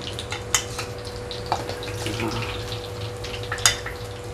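Anchovy fritters frying in shallow oil: a steady sizzle with scattered crackles and pops, broken by a few sharp clicks of a metal fork against the pan and plate as fritters are lifted out, the loudest about three and a half seconds in. A steady low hum runs underneath.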